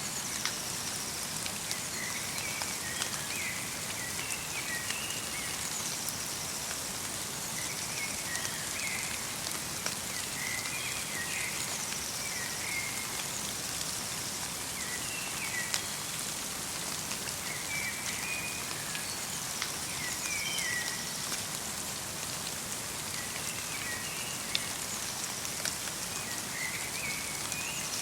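Light rain pattering steadily in a forest, with a small bird repeating short chirping phrases every few seconds and the odd single louder drip.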